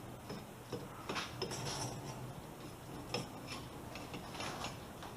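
Scattered light metallic clicks and clinks from a rally coilover strut assembly being handled and turned over by hand.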